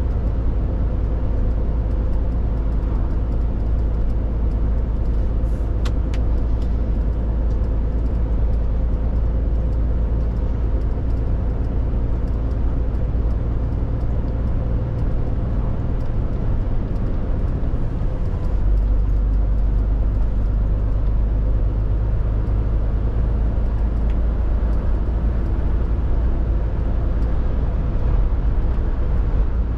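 Scania R450 articulated lorry under way, its 13-litre straight-six diesel running steadily over road and tyre noise. A little past halfway the low drone steps down deeper and grows slightly louder.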